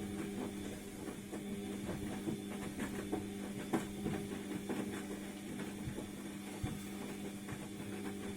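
ATLANT washing machine turning its drum in a wash cycle: a steady motor hum with many small knocks and clicks from the tumbling wet load.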